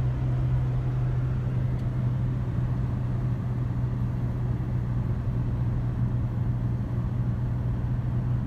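Steady low drone of an SUV's engine and road noise heard from inside the cabin while driving.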